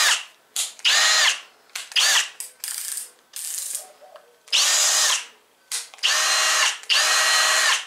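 Power drill set to its low speed, triggered in about seven short bursts. Each burst spins up with a rising whine and then runs steadily for a fraction of a second to about a second before stopping.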